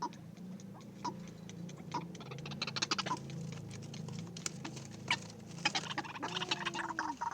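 White-breasted waterhens (ruak-ruak) calling: short sharp clucking notes about once a second at first, becoming faster and busier, with a longer, lower drawn-out call near the end.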